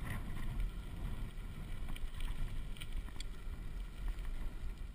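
Kickbike tyres rolling on a gravel road: a steady low rumble and crunch with wind on the microphone and a few scattered small clicks.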